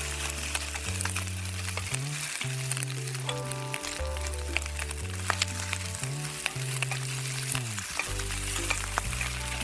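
Pancetta sticks sizzling and crackling in olive oil in a frying pan as metal tongs turn them. Soft background music with low held notes plays underneath.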